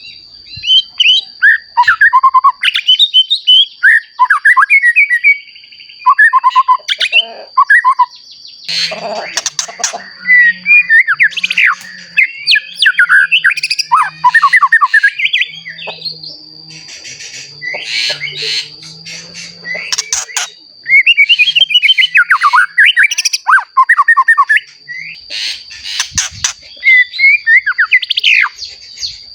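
Young white-rumped shama singing loud, rapid runs of varied whistled phrases in spells with short pauses. A steady high-pitched whine runs underneath.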